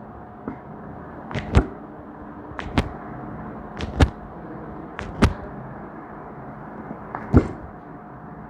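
Sharp slaps in quick pairs, the two strikes of each pair about a quarter second apart, repeating about every second and a quarter, five pairs in all, over a faint steady hum.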